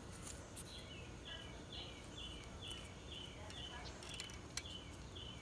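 A bird repeating a short, high, falling chirp about twice a second, faint, with a few light clicks in between.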